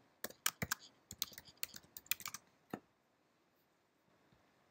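Typing on a computer keyboard: a quick, irregular run of key clicks that stops about two and a half seconds in.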